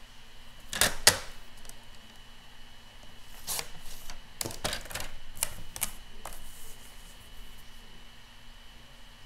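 Clear plastic arm of a paper trimmer clacking down onto the card and base and being lifted again: two sharp clicks about a second in, then a run of lighter clicks and taps a few seconds later, as a card is repositioned for marking.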